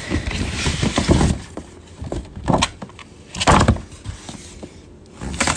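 Paper gift packaging being handled: rustling and scraping, with a few sharp, louder crinkles about one, two and a half, and three and a half seconds in.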